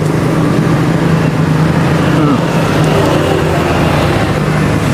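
An engine running steadily at a constant pitch, a low drone under a general roadside noise.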